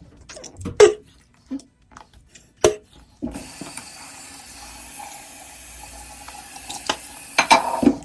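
A few clicks and knocks, then water running steadily for about four and a half seconds, ending with a couple of louder knocks.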